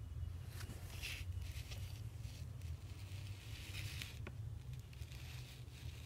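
Soft rustling handling noises from a handheld recording device moving over paper, coming in three short stretches over a steady low hum, with one sharp click about four seconds in.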